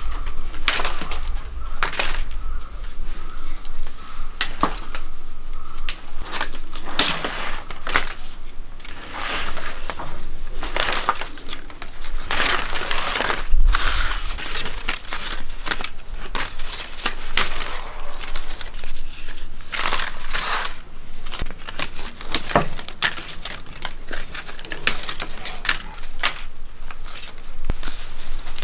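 Fresh vayana leaves rustling and snapping as they are plucked by hand from a leafy branch and stacked together: a run of irregular crisp crackles.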